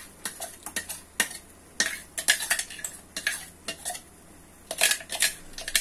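A wooden spatula scrapes and knocks against a metal kadhai as thick onion-tomato-cashew paste is stirred continuously while it fries, in irregular clusters of scrapes. Near the end a steel mixer jar is handled over the pan to scrape out the rest of the paste.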